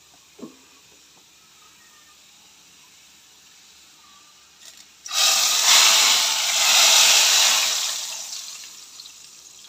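Hot desi ghee and fried garlic poured into a pot of cooked whole masoor dal: a sudden loud hiss and sizzle about five seconds in, the tadka hitting the liquid dal, which dies away over about three seconds.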